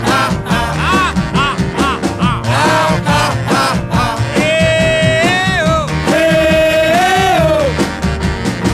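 Background music: a song with singing over a band and a steady beat, with two long held notes near the middle.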